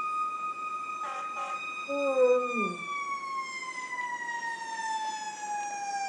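Fire truck siren holding one steady pitch, then from about three seconds in winding slowly down in pitch. About two seconds in, a German Shepherd gives a short howl that falls in pitch.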